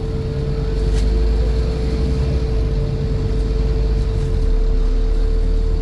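Scania N230 bus running, with a low engine sound beneath a steady buzz that holds one pitch throughout.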